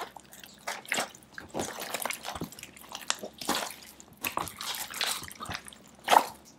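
A large mass of mixed slimes being kneaded, lifted and stretched by hand: irregular wet squelches, clicks and pops, with one louder squelch near the end.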